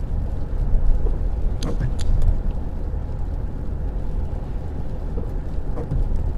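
Car cabin noise while driving on a wet road: a steady low rumble of engine and tyres, with a couple of short clicks about two seconds in.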